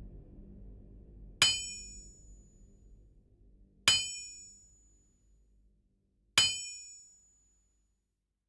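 Three sharp metallic strikes, evenly spaced about two and a half seconds apart, each ringing briefly with high tones before dying away. The last of a low music drone fades out under the first two.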